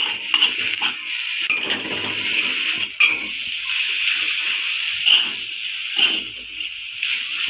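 Instant noodles stir-frying in a wok: a steady sizzle, with a metal spatula scraping and knocking against the wok at irregular intervals as the noodles are tossed.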